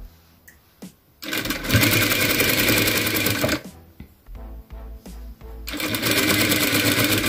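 Electric flat-bed sewing machine stitching fabric in two short runs, the first starting about a second in and lasting about two and a half seconds, the second starting near the end.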